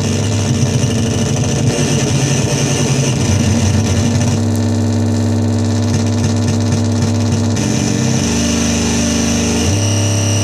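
Dirty Drone [anarchy edition] stochastic drone synth, its three interacting triangle-wave oscillators putting out a loud, low buzzing drone. It jumps to new pitches and textures several times: about halfway through, again a little later, and once more near the end.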